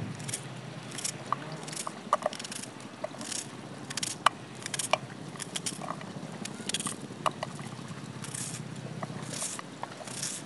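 Kitchen knife slicing through a raw onion held in the hand: a crisp cut about every half second, irregular, with onion slices dropping into a metal bowl and giving short metallic pings. A faint steady low hum runs underneath.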